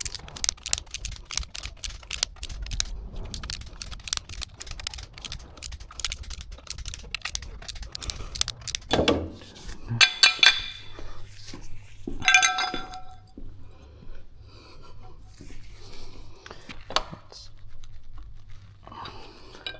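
Metal tools and engine parts clicking and clinking during hands-on engine work: a quick run of small clicks through the first half, then two louder ringing metallic clinks around the middle, with scattered knocks after.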